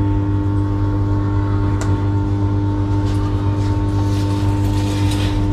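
Steady low electrical hum from a running machine, with a sharp click about two seconds in and light rustling of handling a little later.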